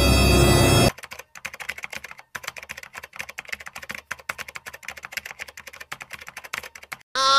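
Typing on a computer keyboard: a fast, irregular run of key clicks, several a second, lasting about six seconds. Before it a loud music cue cuts off about a second in, and a short pitched, voice-like sound starts near the end.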